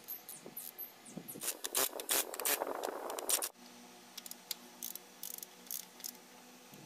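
Hand-tool and metal parts work on an engine's valve gear: scattered light metallic clicks, with a louder rough scraping stretch from about a second and a half in that stops suddenly.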